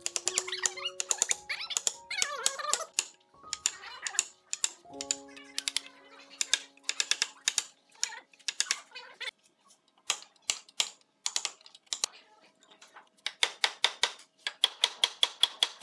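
A hammer rapidly striking a steel chisel as it cuts into a hardwood mitre joint: sharp taps in runs, fastest and loudest near the end at about six a second. Background music with held notes plays under the taps in the first half.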